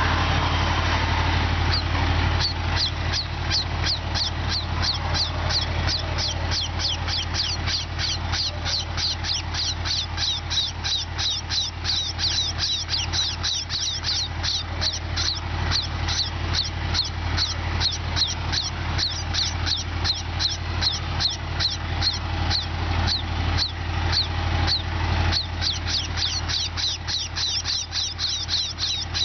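A flock of house sparrows chirping constantly, a dense stream of short high falling chirps from about two seconds in, over a steady low hum.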